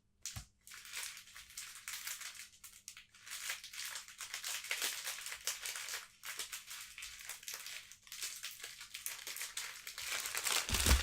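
Small plastic packets crinkling and rustling as they are handled, in short irregular crackles.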